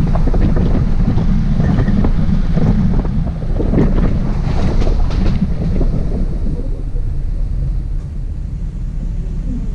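Wind buffeting a hood-mounted camera's microphone over the low rumble of a Hummer H2 driving a rough dirt trail, with knocks and rattles from the truck over bumps in the first half that ease after about six seconds.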